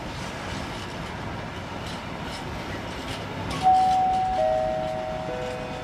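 Empty freight flat wagons rolling past, with steady wheel noise and irregular clicks as the wheels pass over rail joints. About three and a half seconds in, a station public-address chime sounds three notes, each lower than the last, the lead-in to a platform announcement.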